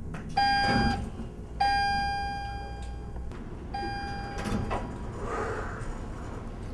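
Elevator arrival chime ringing three times on the same pitch, the second ding ringing longest and fading slowly, with a low hum underneath.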